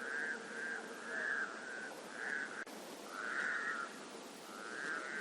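Frogs calling in a chorus at a forest lake: one short buzzy trill after another, each about half a second long, roughly one a second, over a faint steady background.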